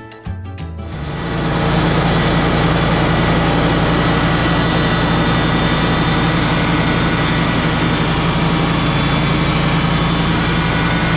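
Wood-Mizer portable band sawmill running steadily under power, a constant engine note with a hiss over it, rising in about a second in and holding level.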